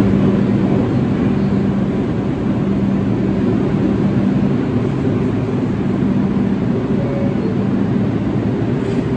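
New York City subway train standing at a station platform, its equipment giving off a steady loud hum with a low tone that drops out briefly a couple of times.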